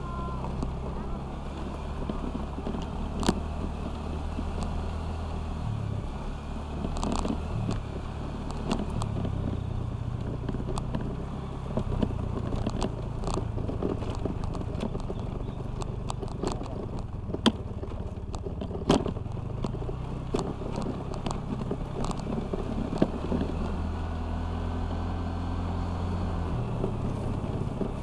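Honda Vario 125 scooter's single-cylinder engine running at riding speed, its note stepping up and down several times. Sharp knocks and rattles come at intervals as it rides over a badly broken village road.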